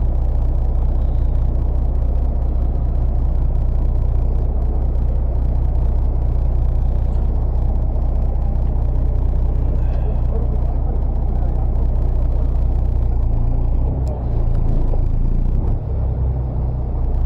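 Fishing boat's engine running steadily, a loud low drone with no change in pace.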